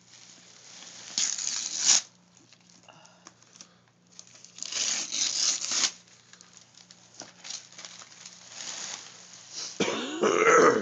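Christmas wrapping paper being torn and crumpled off a present in three bursts, the loudest near the end.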